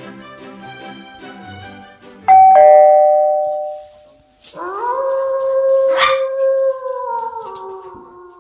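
Background music, then a two-note ding-dong doorbell chime about two seconds in, the loudest sound, ringing and fading. A black Maltipoo puppy then howls for about three seconds, the howl dropping in pitch near the end.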